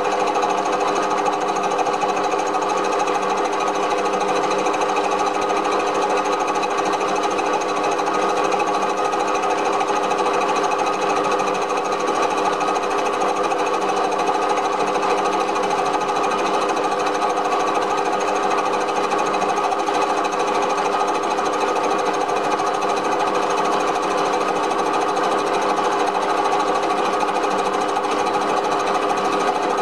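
Small benchtop metal lathe running steadily under slow power feed, taking a light finishing cut on a cylinder-cover casting; the motor and gear train give an even whir with several held whining tones.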